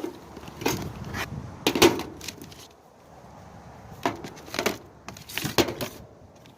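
Handling noises: a series of light knocks, clicks and rattles as small hand tools are turned over and moved about close to the microphone.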